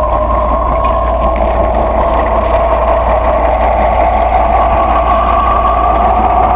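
Soundscape drone: a loud, steady mechanical-sounding hum with two mid-pitched bands that slowly rise, over a constant low hum and a hiss.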